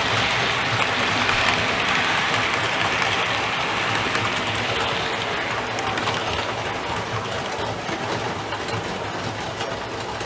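OO gauge model railway coaches rolling past on the track, a steady rumble of metal wheels on the rails with faint clicks, fading slowly as the train moves away.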